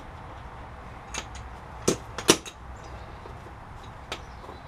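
About four sharp metal clinks and knocks of hand tools against steel suspension parts, the loudest a little past two seconds in, over a faint steady low hum.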